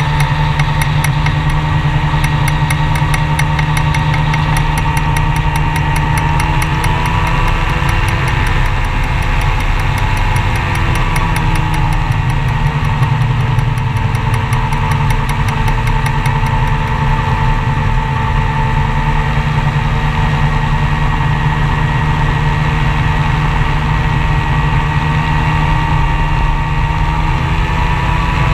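Open-cockpit gyroplane's engine and pusher propeller droning steadily in flight, with wind rush. The pitch sags slightly about a third of the way in, then comes back, and rises again near the end.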